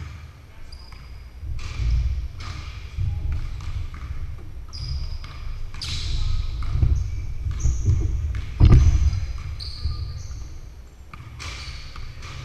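Several basketballs bouncing irregularly on a hardwood gym floor, echoing in the large hall, with short high sneaker squeaks and distant voices; one louder thud about eight and a half seconds in.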